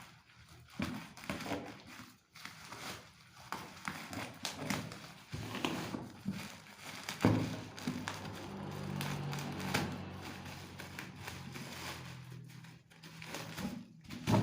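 Packaging being handled during an unboxing: irregular crinkling, taps and thuds, with a low steady hum through the middle stretch.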